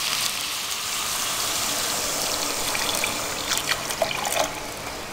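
Hot water being poured steadily into a pan of chicken pieces, carrots and peas, adding the liquid for the stew's broth.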